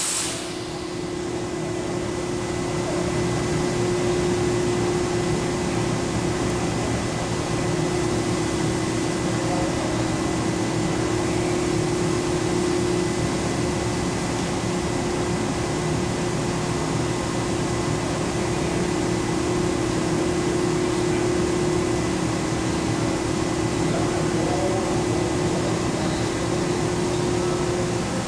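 Komo VR510 Fusion 5-axis CNC router running: a steady machine hum with a constant mid-pitched whine that holds unchanged.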